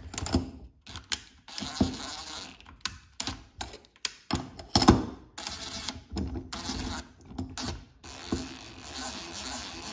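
Cordless impact driver spinning chainsaw cylinder bolts in short bursts, running them in only lightly and backing them off, with clicks of the bit on the bolt heads.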